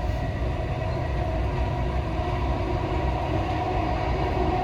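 Steady running rumble of a Dubai Metro train heard from inside the carriage, with a faint steady whine from the traction motors.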